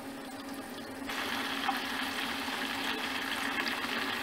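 Spring rolls deep-frying in hot oil in a stainless steel pot, the oil bubbling and sizzling steadily. The sizzle becomes louder about a second in, over a faint steady low hum.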